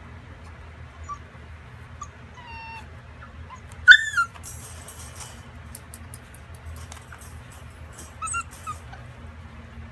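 Puppies whimpering and yipping: a few short, high whines with falling pitch, a louder yelp about four seconds in, and more whimpers near the end. Light clicking between the calls, over a steady low hum.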